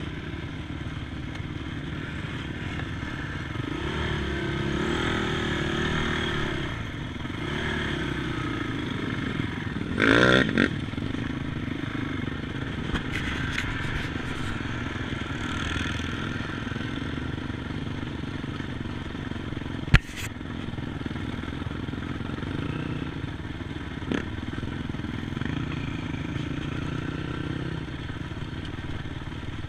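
ATV engines running, wavering in pitch, with one short loud rev rising sharply about ten seconds in. A single sharp click or knock about twenty seconds in.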